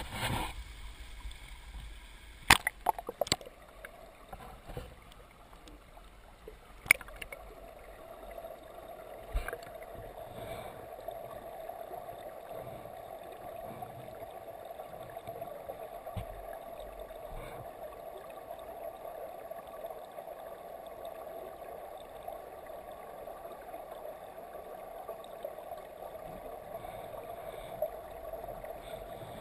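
Flowing stream water heard from a camera under the surface: a steady rush of water. A few sharp knocks come in the first ten seconds as the camera goes under and bumps into place on the streambed.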